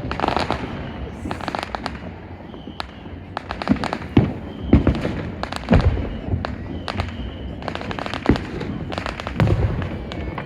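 Fireworks going off: an irregular run of sharp bangs and crackling, with several deeper booms about four to six seconds in.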